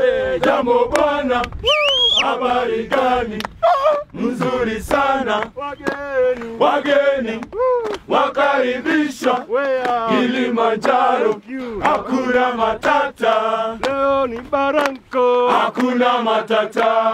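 A group of men singing and chanting together in a lively rhythm, with sharp handclaps throughout and a high cry about two seconds in.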